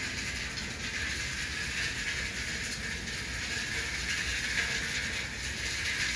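Steady hiss of sea water washing against the harbour quay and breakwater, with a low rumble underneath.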